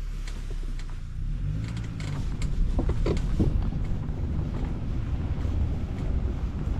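Safari vehicle engine running with a low, steady rumble.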